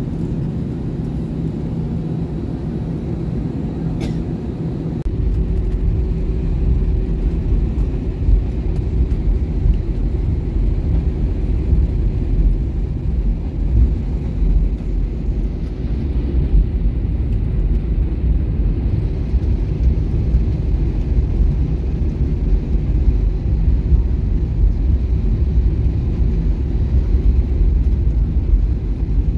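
Airbus A320 cabin noise: steady engine and airflow noise. About five seconds in, after a faint click, a deep, uneven rumble sets in, the landing gear rolling on the runway after touchdown.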